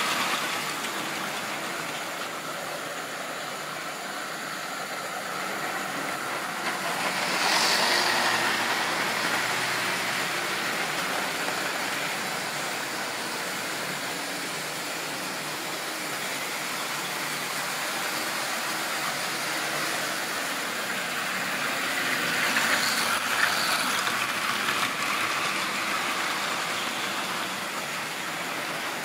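OO-gauge model train running on a layout: the steady rattle of the locomotive and wagons rolling over the track, swelling twice as the train passes close by.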